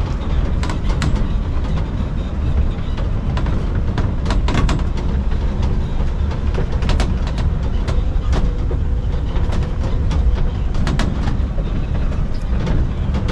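Open-back pickup-truck taxi riding down a rough dirt road: a steady low rumble of engine and tyres, with frequent rattles and knocks from its metal frame and rails as it bounces.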